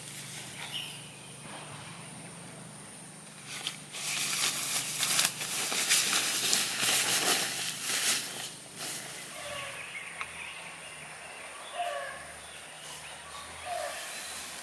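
Nylon fabric of a pop-up dome tent rustling loudly as it is pulled and handled, for about five seconds starting about four seconds in. After that, a bird calls several times in short falling notes.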